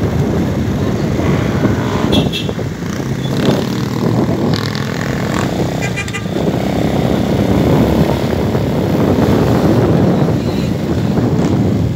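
A small motorcycle engine running steadily while riding along a street, with road noise and traffic around it.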